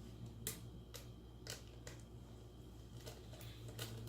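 Sporadic light clicks of small metal engine parts, cam caps and bolts from a motorcycle cylinder head, being handled and set down, about six in four seconds, over a faint steady low hum.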